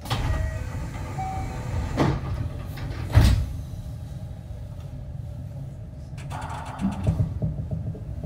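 Inside a JR West 225 series electric train at a station stop: the passenger sliding doors move and shut, with a sharp thud about three seconds in that is the loudest moment. A fast rattling hiss starts about six seconds in, followed by low knocks, over a steady low rumble of the stationary train.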